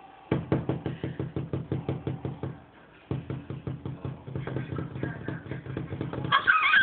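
A rapid run of short knocks or taps, about seven or eight a second, with a brief pause near the middle. Near the end a high, wavering meow-like call begins.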